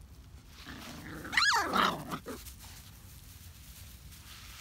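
Puppies play-fighting: a puppy's low growl leads into one sharp, high-pitched yelp about a second and a half in, which slides down in pitch.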